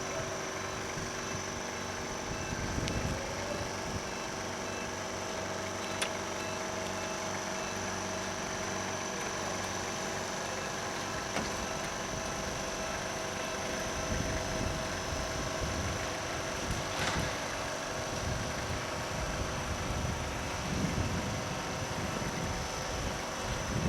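A steady mechanical hum holding several fixed tones, with low rumbles and an occasional sharp click.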